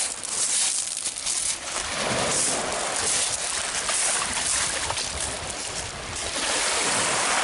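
Small waves breaking and washing up over a shingle beach at the water's edge, a steady wash of surf.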